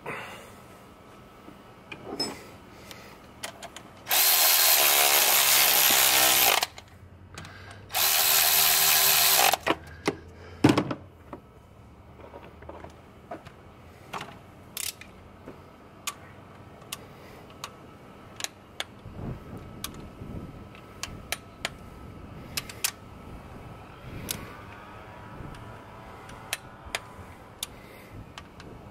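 A power tool runs in two bursts, about two and a half seconds and then about a second and a half, running down the rocker arm bolts on a 6.7 Cummins diesel. Scattered clicks and knocks of hand tools on the engine follow.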